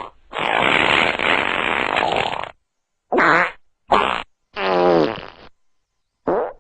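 Fart sound effects: one long, noisy fart lasting about two seconds, then four short separate farts, the fourth of them longer and with a clear pitch.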